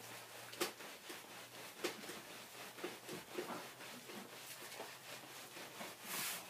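Hands rubbing wet, soapy wool felt over a plastic mesh mat: faint, irregular scrubbing strokes with small ticks, and a louder swish near the end. It is the agitation stage of wet felting, the felt worked firmly in each direction so the fibres mat together.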